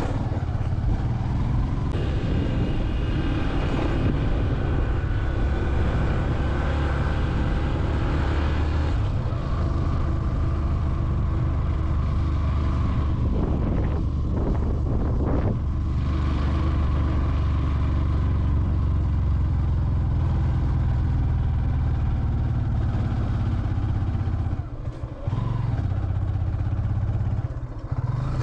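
Motorcycle engine running steadily while riding up a rough mountain road, with a constant low rumble. The level dips briefly twice near the end.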